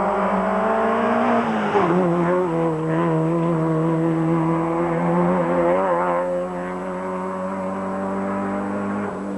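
Rally car engine passing close. The engine note drops about a second and a half in as the car comes off the throttle for the bend, then holds fairly steady under power as the car goes through the corner and away.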